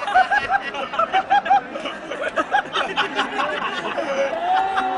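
Spectators in the stands laughing and shouting in quick, short syllables close to the phone, over crowd noise, with one long drawn-out call near the end.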